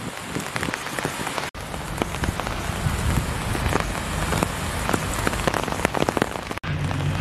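Steady rain falling and pattering on surfaces, with many close drops ticking. From about halfway a low, steady engine hum from a site vehicle joins underneath, growing stronger near the end.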